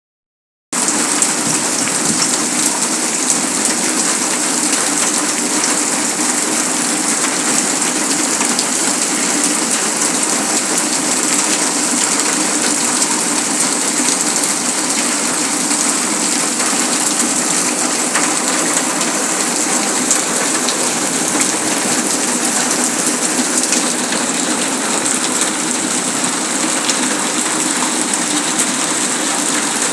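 Heavy rain falling steadily, a dense even hiss of rain striking surfaces with many fine drop ticks.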